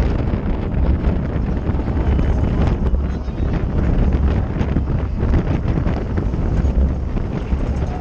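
Wind buffeting the microphone of a camera mounted on a racing bicycle at speed: a steady, loud low rumble with a rushing hiss over it, and faint scattered clicks.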